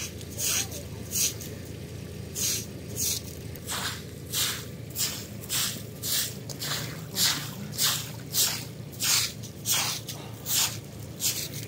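A broom sweeping muddy water and slush off a concrete slab: a steady run of short, wet swishes, about one and a half strokes a second.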